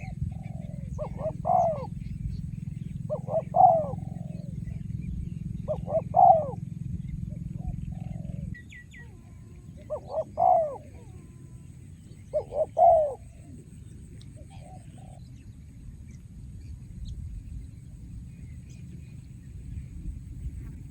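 Spotted dove cooing: repeated deep, multi-note coo phrases every few seconds. Under the first third a low rumble runs, then stops abruptly.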